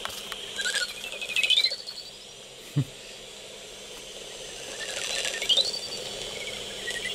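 Lesser horseshoe bats squeaking: two bouts of rising and falling squeaky chirps, about a second in and again around five seconds in, over a steady hiss.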